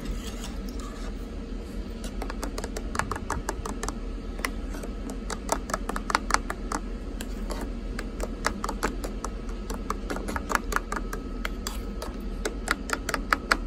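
A spoon stirring instant espresso into hot water in a metal Jetboil cup, clicking and scraping against the cup's wall in quick, irregular taps, with a few brief squeaks of the spoon dragging on the metal.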